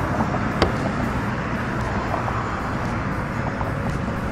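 Steady rumble of road traffic, with a sharp click about half a second in and faint small clicks of a hand screwdriver turning a screw into a brake light lens.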